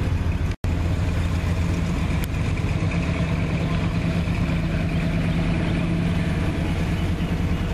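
Car engine idling steadily. The sound drops out completely for an instant about half a second in.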